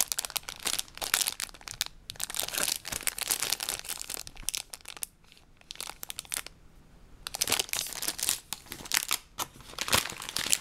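Clear plastic bags of LEGO pieces crinkling as they are handled and shaken. The crackling drops off for about two seconds midway, then picks up again.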